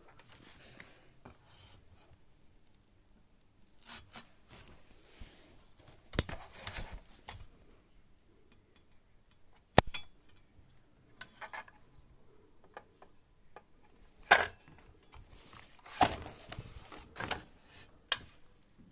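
Irregular handling noises: a handful of sharp knocks and clinks, with soft rustling and rattling between them, and no motor running.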